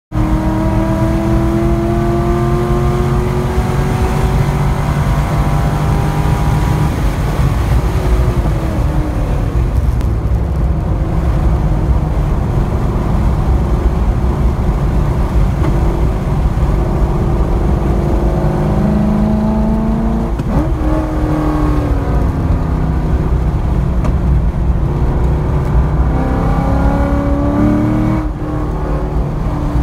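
C5 Corvette Z06's V8 heard from inside the cabin on track, rising and falling in pitch as it pulls through the corners. The pitch drops sharply once, about two-thirds of the way in, and the loudness dips briefly near the end as the throttle comes off.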